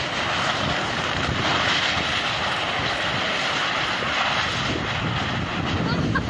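Strong gusty wind blowing, a steady rush of noise with no distinct strikes or tones.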